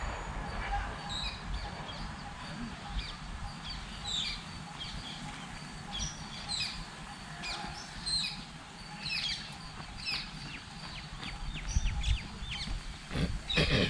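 Small birds chirping: many short, quick falling chirps scattered through, over a low rumbling background. Near the end, a few scuffing footsteps on a dirt path.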